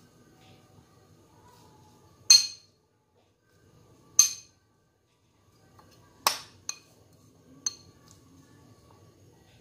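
A metal fork knocking and scraping against a ceramic bowl to empty out grated apple: five sharp clinks, the loudest about two and four seconds in, then three more around six to eight seconds.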